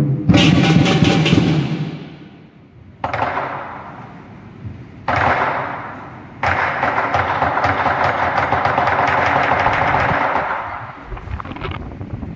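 Traditional southern lion dance percussion, with the big drum mostly silent. Cymbals and gong crash once about every two seconds, each ringing and dying away. About six seconds in, a dense run of rapid cymbal clashing starts and holds steadily for about four seconds before fading.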